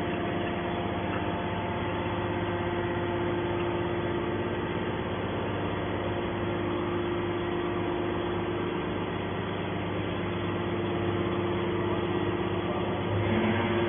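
Hydraulic power unit of a scrap shear running steadily: a constant mechanical hum with a steady tone and no cutting or impact strokes. It grows a little louder near the end.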